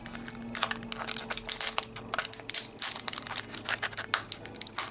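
Plastic wrapper on a heart-shaped Squishy Pops blind toy case crinkling and tearing as fingers peel it open, in quick irregular crackles.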